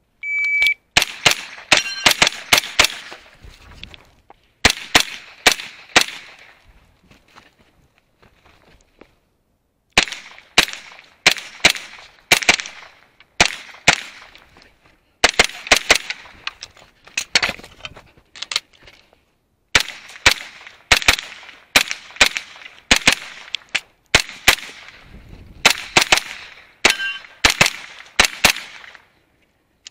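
A shot timer beeps once, then a pistol-caliber carbine fires dozens of rapid shots at steel targets. The shots come in quick strings of two to five, with short breaks between strings and a longer lull of a few seconds about a third of the way in.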